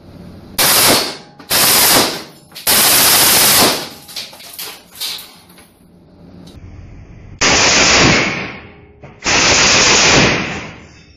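Submachine gun fired in short full-auto bursts: three bursts in the first four seconds, a few seconds of quieter handling clicks, then two more bursts near the end.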